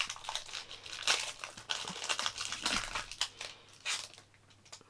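Foil wrapper of a Pokémon booster pack crinkling and tearing as it is pulled open by hand: a run of irregular crackles that dies down near the end.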